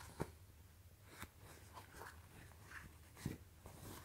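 Faint rustling of cotton-polyester cargo trousers being handled, with three soft short taps or rustles over a low steady hum.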